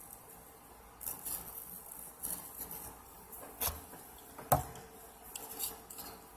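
Hard objects being handled and set down on a work surface: scattered light clicks and scrapes, with a sharper knock about halfway through.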